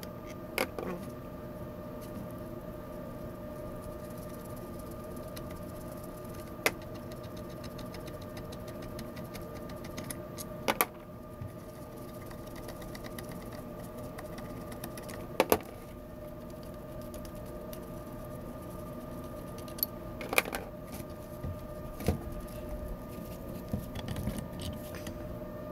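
A handful of sharp metal clanks and clinks, a few seconds apart, as steel coupling halves, nuts and bolts of grooved pipe fittings are handled and set down, over a steady mechanical hum.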